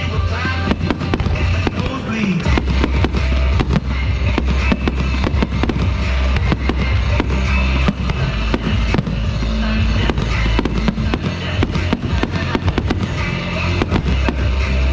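Aerial fireworks going off in rapid succession, a dense run of bangs and crackles, over music with steady low bass notes.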